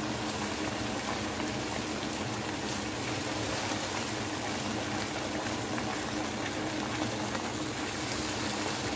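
Semolina halwa of suji, ghee, sugar and water bubbling and sizzling steadily in an aluminium pan as it cooks down, stirred with a silicone spatula.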